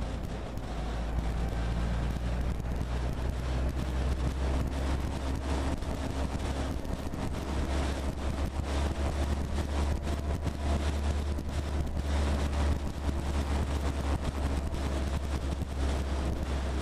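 Military jeep driving on a dirt road, heard at its hood: a steady low engine drone with many small rattles and knocks from the body, and wind buffeting the microphone.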